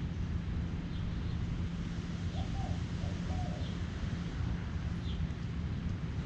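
Birds calling over a steady low rumble: scattered short, high chirps, and a dove cooing two low notes near the middle.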